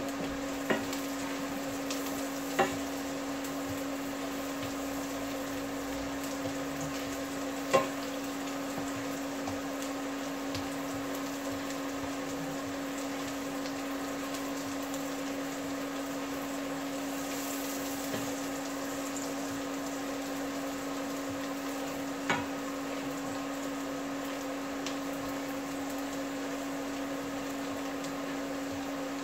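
Minced garlic sizzling as it sautés in butter in a frying pan, stirred with a utensil that taps sharply against the pan a few times. A steady hum runs underneath.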